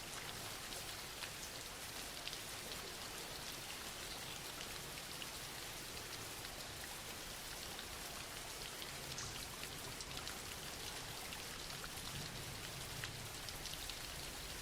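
Steady soft rain falling, an even hiss with scattered small drop ticks.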